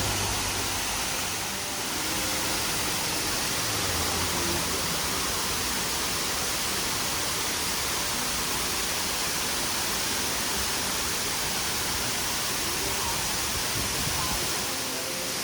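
Waterfall: falling water making a steady, even rush that holds at the same level throughout.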